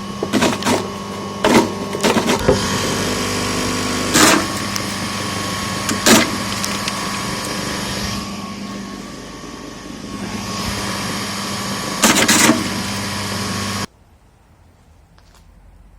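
Homemade electric apple crusher running with a steady motor hum and repeated knocks and clatter. It cuts off abruptly about 14 seconds in.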